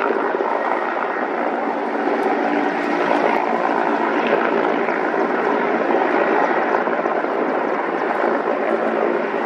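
Mil Mi-24 and Mil Mi-17 helicopters in flight, each driven by twin turboshaft engines. A steady mix of engine and rotor noise, with faint steady tones running through it.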